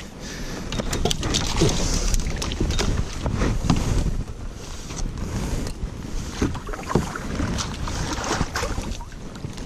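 Canoe on a small river being paddled and worked along: water sloshing and splashing, with irregular knocks and scrapes of paddle and hull.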